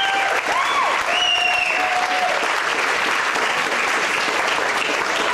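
Audience applauding steadily, with a few high pitched calls over the clapping in the first two seconds.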